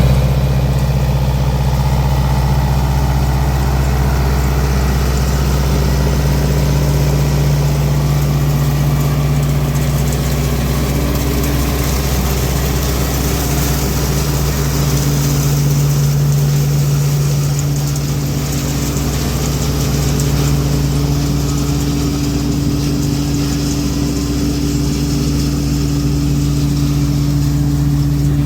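Farm machine's engine running steadily at an even speed, a loud constant drone that cuts in suddenly at the start.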